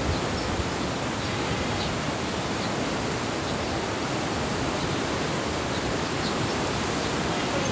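Steady rush of a strong river current flowing through a dam.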